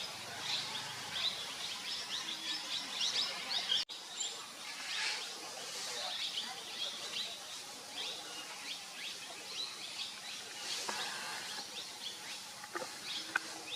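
Birds chirping, with many short, high calls overlapping one another. The sound cuts out for an instant about four seconds in.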